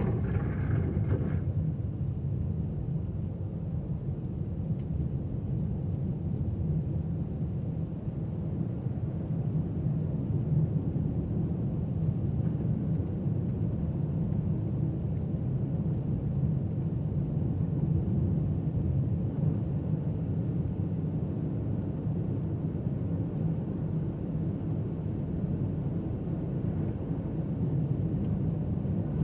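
Steady low rumble of a car driving: engine and tyre noise on a snowy road, without a break.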